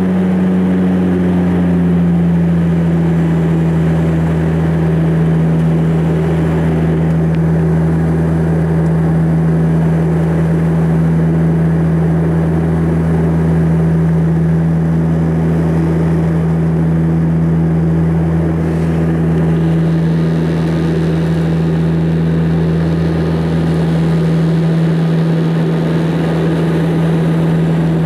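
Saab 340 turboprop engine and propeller heard from inside the cabin beside the engine during the climb. A steady low propeller drone dips slightly in pitch about a second in, with a slow regular throb over a rushing airflow hiss.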